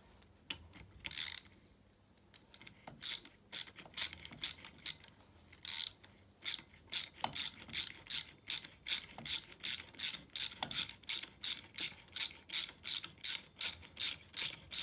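Hand ratchet wrench clicking as it runs down the bolt on an ATV engine's starter coupling: a few scattered clicks at first, then a steady rhythm of about three clicks a second from about two and a half seconds in.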